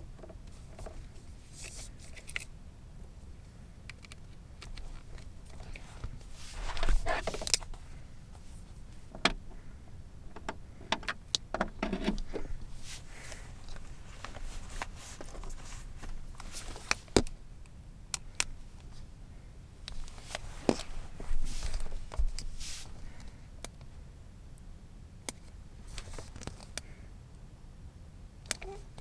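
Scattered handling sounds in a small enclosed space: sharp clicks, rustling and short scrapes, several seconds apart, over a steady low hum.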